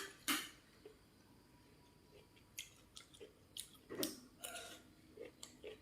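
Quiet, scattered eating sounds of someone chewing boiled corn on the cob: a sharp bite just after the start, then a short lull, then a few small clicks and soft chewing noises.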